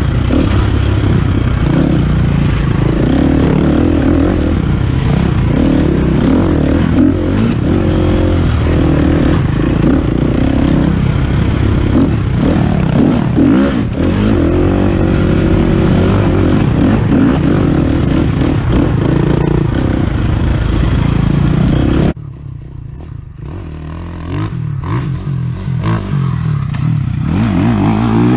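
KTM dirt bike engine revving up and down under way on a rough trail, heard up close with wind and rattle from the bike. About 22 seconds in the sound drops suddenly to a quieter, more distant engine that grows louder near the end.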